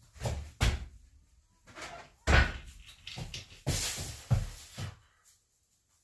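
Gym equipment knocking and rattling during a set of chaotic overhead presses with a light PVC bar: a run of irregular clanks and knocks over about five seconds, dying away near the end.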